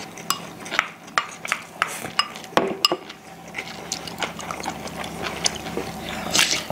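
Metal spoons and chopsticks clinking and tapping against small ceramic bowls in irregular, sharp clicks, with the wet sounds of people eating and sipping between them.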